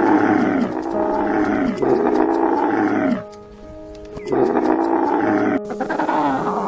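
An animal calling over and over, each call falling in pitch, over background music; the calls pause for about a second midway and change to a different, higher-pitched animal sound near the end.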